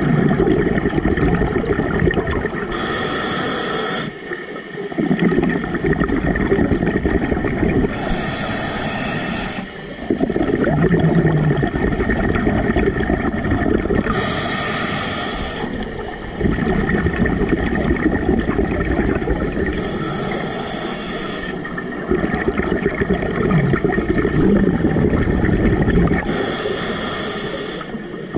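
Scuba diver breathing through a regulator underwater: about every six seconds a short high hiss of inhalation, five in all, between longer stretches of bubbling as each exhaled breath vents.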